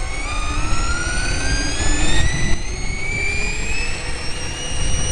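Electric vehicle's three-phase motor, its windings switched to delta, whining as it accelerates: several tones climb steadily in pitch together and level off near the end, over a steady low rumble of road and wind.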